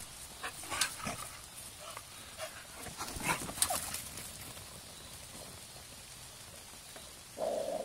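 American Staffordshire terriers at play, chasing a ball, with scattered short dog noises over the first few seconds. Near the end a dog gives a short, louder cry.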